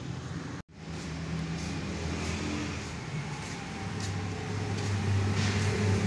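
A motor running with a steady low hum that grows a little louder towards the end. The sound cuts out for a moment less than a second in.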